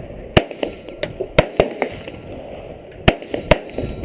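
Gunshots: four or five loud, sharp reports at uneven intervals, with fainter shots between them.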